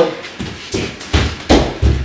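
A run of about five soft knocks and thumps in two seconds, several with a heavy low thud.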